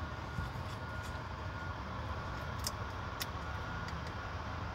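Steady low rumble of an idling truck engine heard inside the cab, with a faint repeated beep in the background. A few sharp light clicks from a small plastic sauce cup being handled, the loudest about two and a half and three seconds in.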